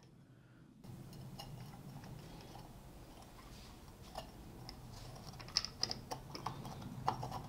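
Light metal clicks and scraping of a small tool prying at the retaining ring that holds the glass lens in a vintage Honda CB175 taillight, over a low steady hum. The ticks are scattered, growing busier near the end.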